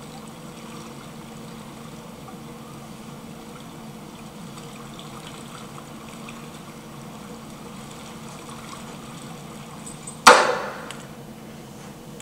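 Quiet, steady ambience from a film soundtrack played over a hall's speakers, with a faint hum under it, during a riverbank scene. About ten seconds in, one sudden loud sound that dies away within half a second.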